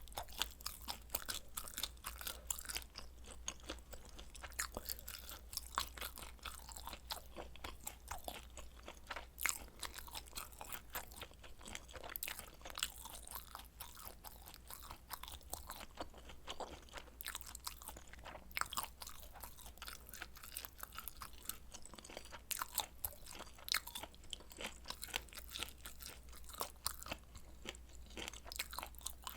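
A person chewing and biting a meal of spicy stir-fried noodles and kielbasa sausage: a dense, irregular run of crisp crunches and clicks, with no pauses.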